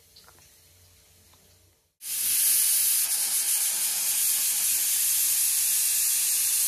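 Stovetop pressure cooker whistling: steam rushes out under the lifted weight in a loud, steady hiss that starts suddenly about two seconds in. The whistle is the sign that the cooker has come up to pressure.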